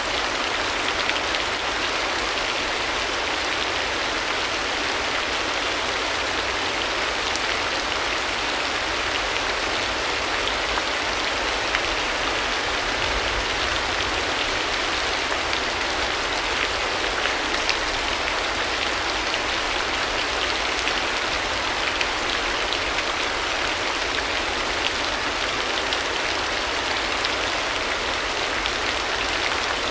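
Steady, even rushing of water, with a few faint ticks scattered through it.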